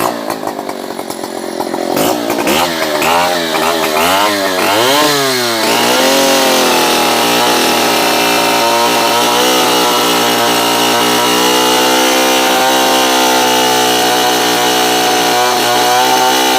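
Stihl 720 two-stroke chainsaw engine running. It is revved up and down several times, then held steady at high revs for about ten seconds.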